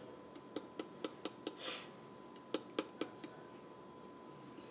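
A plastic spice shaker shaken and tapped over a metal teaspoon: light clicks in two quick runs of about four a second, with a brief rustle between them.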